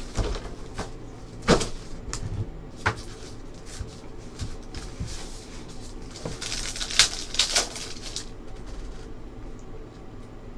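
Plastic trading-card pack wrappers being torn open and crinkled, with cards handled against each other. There are sharp crackles about a second and a half in, and a longer burst of crinkling around six to eight seconds in.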